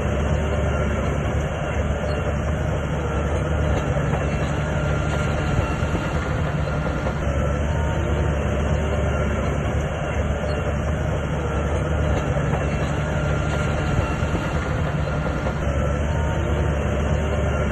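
Shantui crawler bulldozer working steadily: its diesel engine runs at an even pitch under the clank of its steel tracks.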